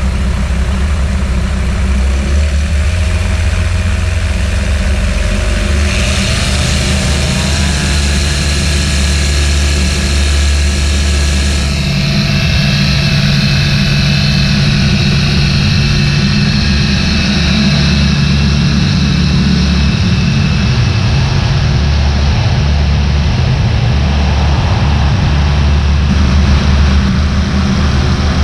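Apollo Fox ultralight aeroplane's propeller engine running loud and steady through the takeoff run on grass and the climb-out, its note rising a few seconds in as power comes up.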